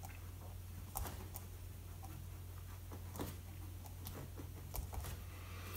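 Pen writing on a paper pad: faint scratches and light ticks of the nib as the words are written, over a low steady hum.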